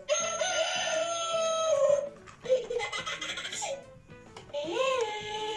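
Electronic sound effects from a toy: a wavering, pitched call that repeats and ends about two seconds in, then, after a short gap with light clicks, a brief rising-and-falling, laugh-like sound about five seconds in.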